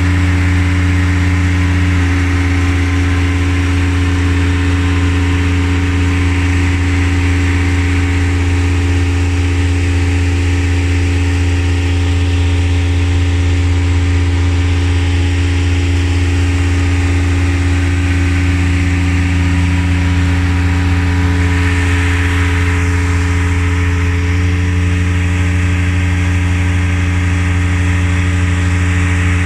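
An engine running steadily at constant speed, a loud low hum with a steady pitch that does not change.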